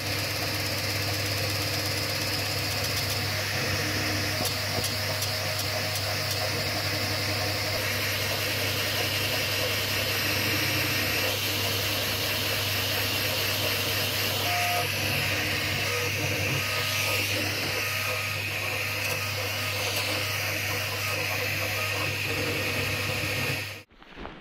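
Bambu Lab P1P 3D printer running a print: its fans and motors make a steady hum and whir, with a few short higher tones as the print head moves. The sound cuts off abruptly just before the end.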